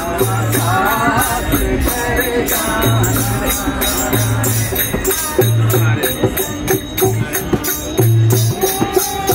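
Group singing of a Bhim bhajan, a Hindi devotional song, with a tambourine's jingles shaken in a steady rhythm and a dholak's deep strokes keeping the beat about once a second.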